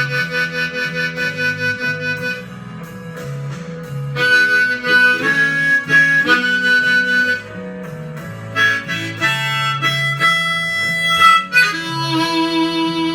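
Blues harmonica solo over a plucked guitar bass line. It opens on a pulsing held chord, plays phrases with bent notes, and settles on a held chord near the end.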